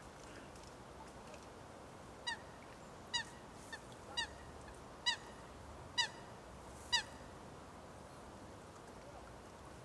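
A waterbird giving a series of seven short honking calls, about one a second, each dropping slightly in pitch, starting about two seconds in and stopping about seven seconds in.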